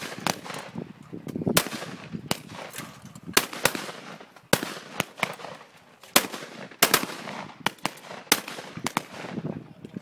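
Shotgun blasts from several guns firing in quick, irregular succession at a flush of clay targets, about one to two shots a second with some pairs close together, each shot trailing off in a short echo.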